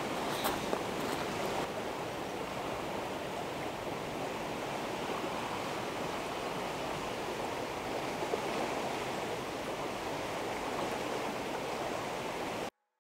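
Steady rushing of river water, with a few faint clicks about half a second to a second in. It cuts off suddenly just before the end.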